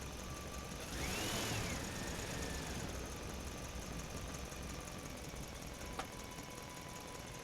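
Faint vehicle engine sound effect running low, with a rising-then-falling whoosh about a second in and a short click about six seconds in.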